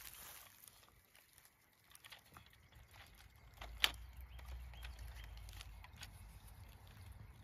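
Faint clicks of a plastic toy dart blaster being handled and loaded, with one sharp click about four seconds in. A low steady rumble runs underneath from about halfway through.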